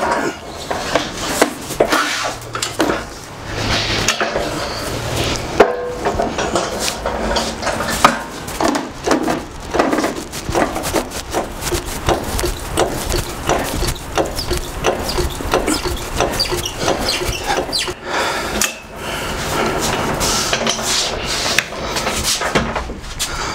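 Repeated knocks and clatter of wooden dunnage blocks being handled and set under a loaded pallet, mixed with the rattle of a manual pallet jack being rolled and worked.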